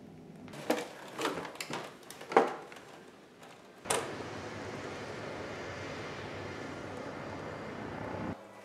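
Four short knocks and rattles in the first two and a half seconds, the loudest near the end of them. Then, from about four seconds in, a steady outdoor background noise of hiss and low rumble.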